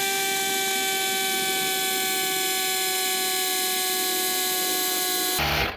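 Auxito AJ01 jump starter's built-in electric air compressor running steadily while inflating a flat bicycle tire, a high whine that eases slightly lower in pitch. It stops near the end.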